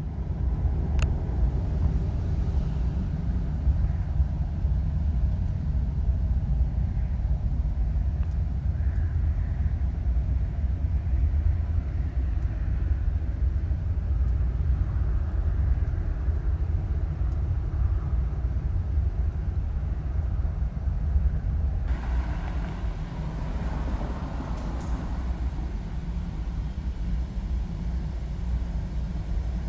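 Loud, steady low rumbling drone of unknown origin, of the kind posted as mysterious 'strange sounds from the sky'. About 22 seconds in, a rougher, higher layer joins the rumble.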